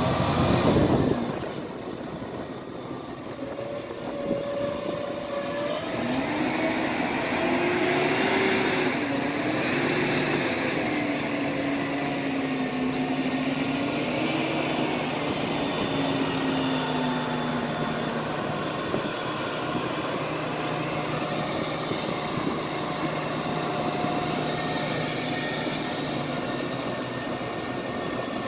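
A Ploeger tracked onion loader's engine running steadily as the machine drives across the field. Its droning note wanders up and down for several seconds, then settles.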